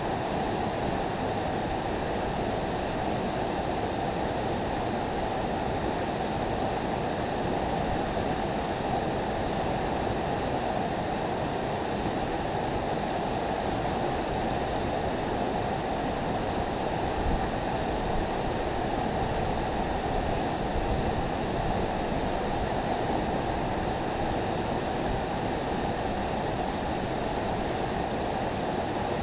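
Steady rushing of fast river water pouring through a spillway, an even roar that holds unchanged throughout.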